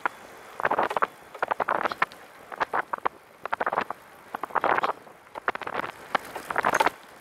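Catrike 700 recumbent trike rattling and clattering as it is ridden along a paved path, in clusters of sharp clicks about once a second over a faint rush of wind and rolling noise.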